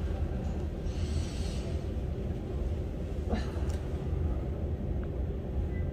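A woman in labour breathing heavily through a contraction, with an audible breath out about a second in and a short sharp breath past the middle, over a steady low rumble.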